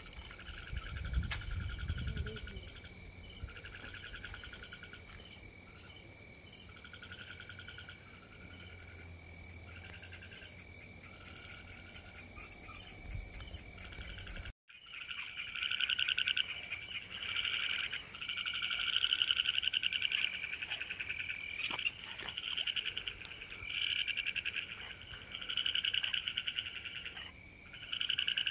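Night chorus of crickets trilling steadily, high and continuous, with frogs calling in repeated bouts every second or two. The sound cuts out for an instant about halfway through and comes back louder.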